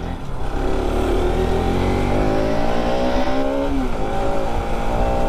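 Bajaj Pulsar RS200's single-cylinder engine running under throttle just after a push start, its pitch climbing for a couple of seconds, dropping briefly just before four seconds in, then holding steady.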